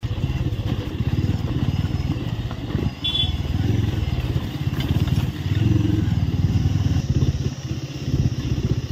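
Bajaj Avenger 220 Street's single-cylinder engine running while the motorcycle is ridden, dipping briefly in loudness about three seconds in.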